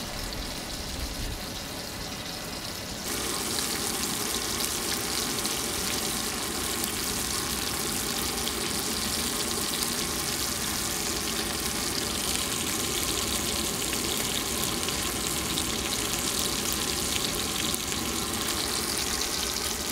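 Pink snapper fillets sizzling in a hot frying pan over a portable gas canister stove: a steady crackling hiss that grows suddenly louder about three seconds in and then holds steady.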